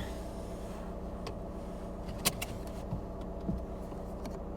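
Mitsubishi Triton's engine idling steadily, heard from inside the cab, with a few light clicks over it.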